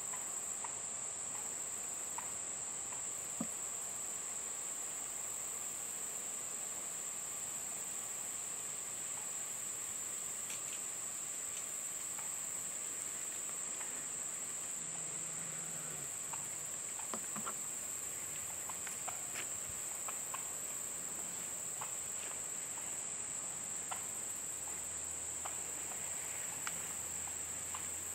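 A chorus of insects, a steady high-pitched drone without a break. Scattered faint ticks and rustles sound over it.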